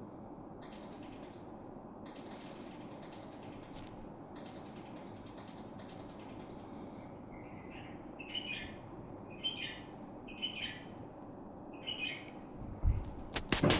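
A small bird chirping: a series of five short chirps about a second apart through the second half, over a steady background hiss. A loud knock near the end.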